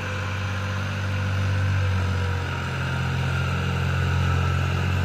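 New Holland 3600-2 tractor's diesel engine running steadily with a low hum as it pulls an implement across a tilled field.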